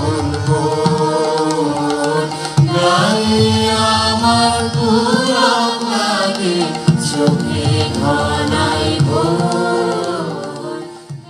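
Background music: a sung melody with gliding, ornamented notes over hand-drum strokes, fading out near the end.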